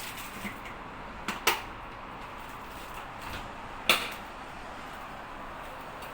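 Dishwasher running with a steady hiss, broken by two sharp knocks about a second and a half in and a louder single knock near four seconds in.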